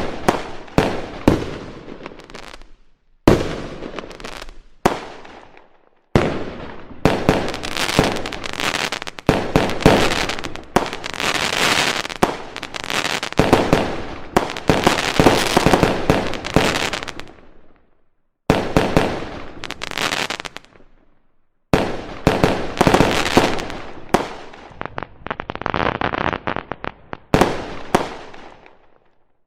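Fireworks going off: rapid sharp bangs and crackling, coming in dense clusters separated by sudden cuts to silence a few times.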